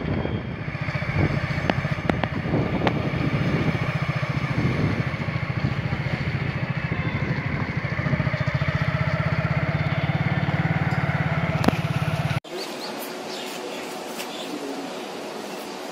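A motor vehicle engine running steadily with a fast low pulse; it cuts off abruptly about twelve seconds in, leaving a much quieter background.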